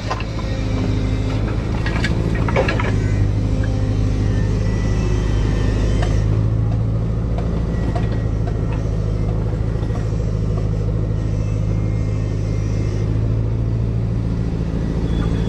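Excavator's diesel engine running steadily with a low, even drone, with a few short knocks or scrapes in the first three seconds.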